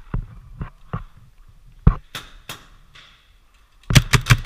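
Paintball markers firing: a few scattered single pops, then near the end a rapid string of shots, about eight a second.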